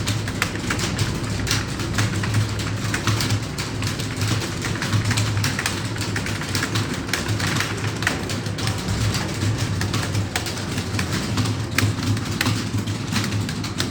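Many computer keyboards clattering at once as a roomful of typists types steadily, the key clicks overlapping in a dense, irregular patter over a steady low hum.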